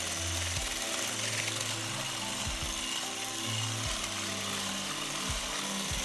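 Electric hand mixer running steadily, its beaters whipping cream in a bowl.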